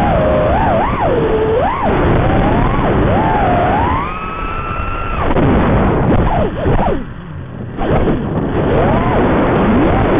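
FPV quadcopter's brushless motors whining over rushing wind noise, the pitch swinging quickly up and down with the throttle. About four seconds in the whine climbs and holds high for a second, then cuts off abruptly as the quad goes into a flip; it dips again briefly about seven seconds in, then picks back up.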